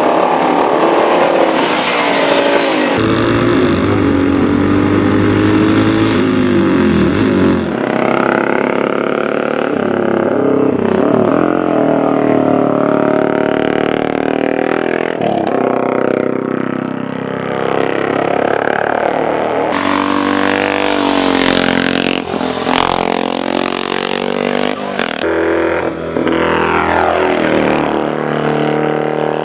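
Racing motorcycle engines at speed, their pitch repeatedly rising and falling as they rev and sweep past, with a few abrupt jumps in the sound.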